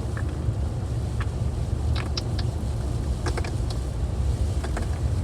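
Steady low road rumble inside a moving car, with a scattering of small sharp clicks and taps, about eight in all, from fidget toys being handled.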